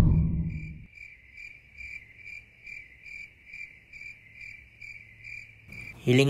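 Cricket chirping for night-time ambience, an even, high chirp about two and a half times a second. Before it, a deep low rumble fades out in the first second.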